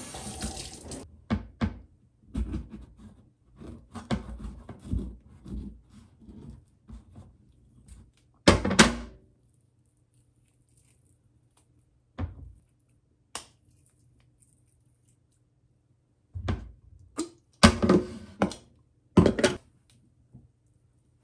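Kitchen prep knocks: a knife and spoon thunking against a wooden cutting board as an avocado is cut, split and scooped, in scattered knocks with quiet gaps and a cluster of louder ones near the end. A faint low hum runs under the pauses.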